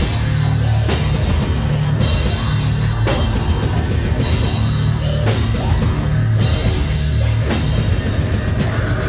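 Live industrial metal band playing loud, with pounding drums and heavy bass. It is heard from the crowd as a rough, distorted recording.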